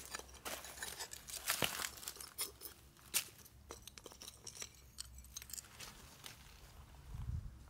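Dry leaves, straw and soil crackling and rustling under a hand that digs into a buried, broken clay pot. The crackling is densest in the first few seconds and thins out to scattered crackles later.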